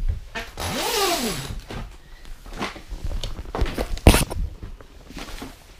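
Handling noises: a zipper drawn open with a rasp, then scattered clicks and a sharp knock about four seconds in as a folding aluminium-framed bag is handled.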